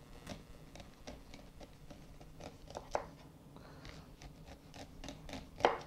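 Chef's knife slicing kernels off an ear of fresh corn on a wooden cutting board: many small clicks and scrapes as the blade cuts down the cob and kernels drop onto the board. There are a few louder knocks about three seconds in and near the end.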